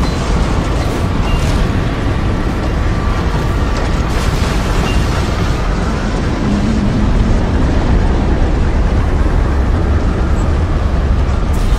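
Tornado sound effect: a loud, steady, deep rush of wind noise, heaviest in the low rumble, with faint thin whistling tones above it.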